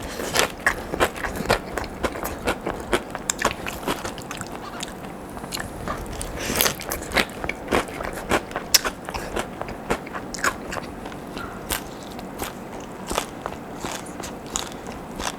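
Close-up chewing and biting of crisp fried potato sticks, with irregular sharp crunches throughout.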